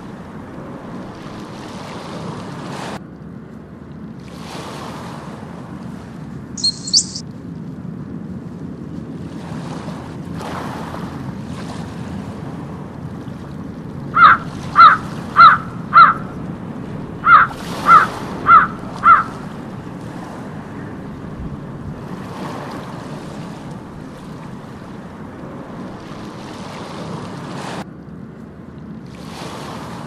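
Two series of loud, short gull calls, four notes then five, about half a second apart, over a steady wash of water and surf noise. A brief high double chirp comes a few seconds before them.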